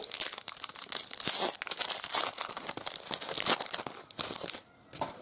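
Foil wrapper of an Upper Deck Hulk trading-card pack crinkling and tearing as it is pulled open by hand, a dense run of crackles that drops away about four and a half seconds in.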